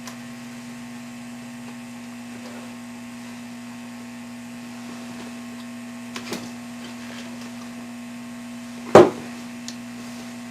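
Steady electrical hum of bench equipment, with two light clicks about six seconds in and one loud, sharp, very short burst of noise about nine seconds in.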